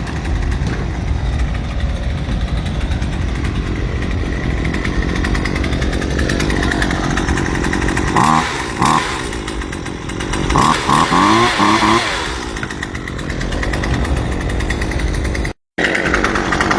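Pole saw attachment on a gas string trimmer running, the engine revving up in short bursts about halfway through; the sound cuts off suddenly near the end.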